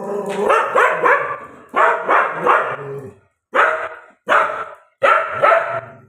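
A dog barking loudly and repeatedly, about ten barks in quick groups of two or three with short gaps between them.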